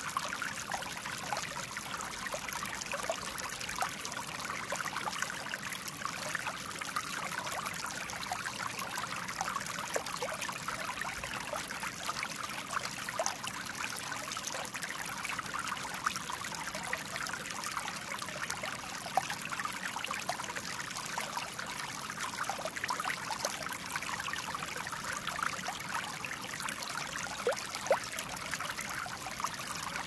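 River water flowing over small stones and pebbles: a steady rush, flecked with many small splashes and trickles.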